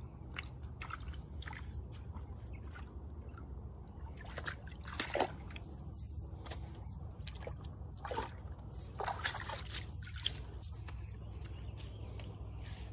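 Canada goose moving through a shallow creek pool, the water sloshing and splashing around it in short irregular strokes, with a few louder splashes around the middle.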